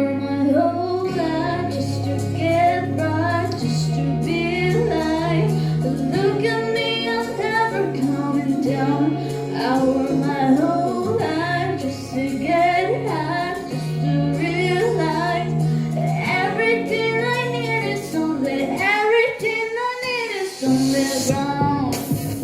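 Pop song with female lead vocals singing a melody over a steady bass line.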